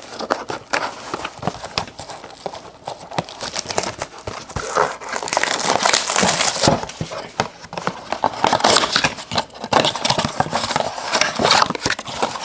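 Plastic wrapping crinkling and cardboard rustling and tapping as a trading-card blaster box is unwrapped and opened by hand, in dense irregular crackles.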